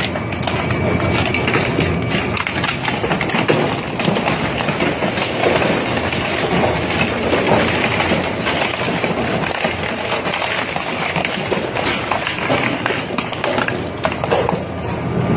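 Twin-shaft industrial shredder tearing up baby strollers: a steady run of crunching and cracking as the rotating cutter discs break down plastic wheels, fabric and metal frame tubing.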